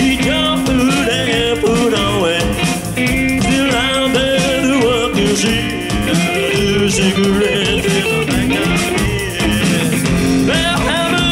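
Live band playing a slow rock song: a man singing at the microphone over his own electric guitar and an electric bass.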